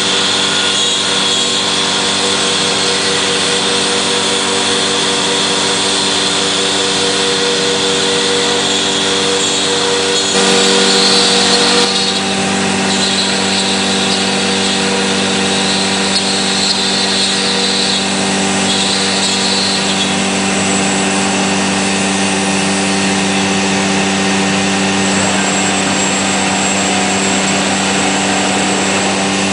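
SHMS1828D CNC router machining MDF: the spindle runs with a steady whine of several tones, and the cutting sound gets louder for a couple of seconds about ten seconds in.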